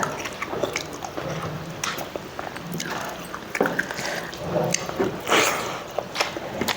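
A person eating rice close to the microphone: chewing with irregular wet mouth smacks and clicks.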